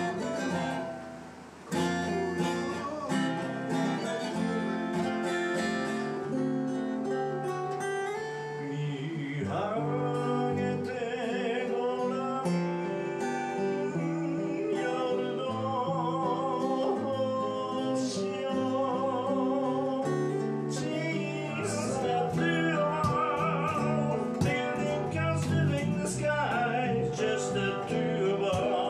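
Acoustic guitars strummed and picked together with a man singing with vibrato into a microphone. Near the end a violin-shaped electric bass plays alongside one acoustic guitar.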